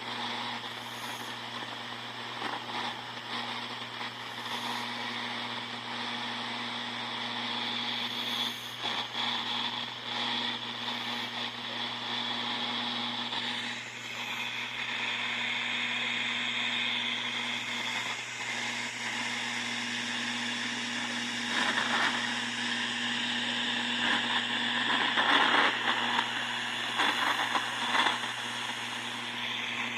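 Steady electrical hum under a hiss of static, with irregular crackling and rustling that grows stronger in the second half.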